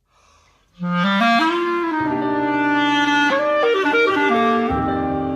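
Music: a woodwind melody over held bass notes, starting about a second in.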